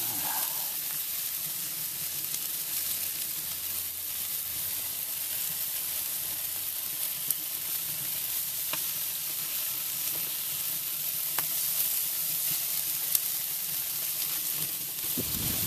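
Barbecue-sauced chicken drumsticks sizzling on the grate of a Big Green Egg kamado grill over hot charcoal as sauce is brushed on. A steady hiss runs throughout, with a few sharp pops in the second half.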